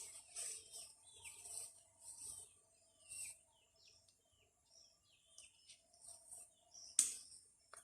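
Rainforest wildlife: birds giving short falling whistles and insects chirping over a steady high insect drone. One sharp knock sounds near the end.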